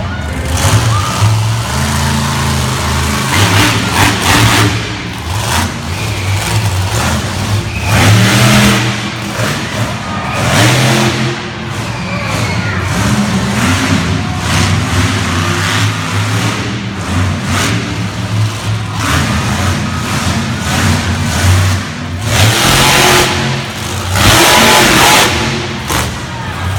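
Monster truck engine running loud, revving up and down repeatedly, with several full-throttle surges, the biggest about eight seconds in, around eleven seconds and between about twenty-two and twenty-five seconds.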